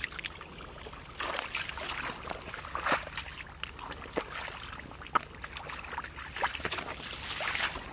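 Shallow muddy water sloshing and splashing irregularly as hands grope through the mud and feet wade in it.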